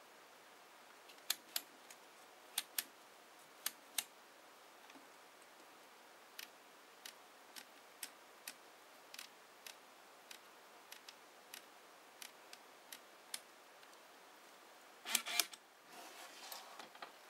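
Nikon DSLR shutter fired three times in the first few seconds, each a sharp double click of shutter and mirror. Then a run of soft single clicks, about two a second, from the command dial turned step by step to change the aperture. Another loud shutter release about fifteen seconds in, followed by a short stretch of handling rustle.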